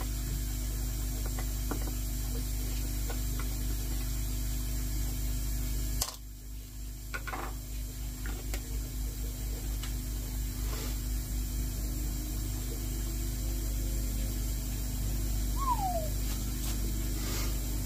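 Steady mechanical hum of running machinery. About six seconds in it cuts abruptly to a quieter hum that pulses slowly.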